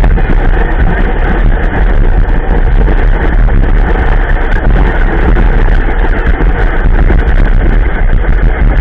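A vehicle engine running steadily under heavy low rumbling noise, like wind buffeting the microphone.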